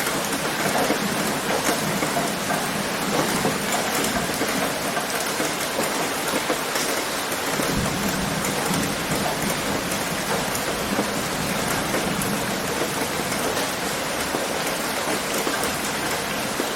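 Steady rain pattering on a tin roof in dense, fine drops. A low rumble swells briefly about halfway through.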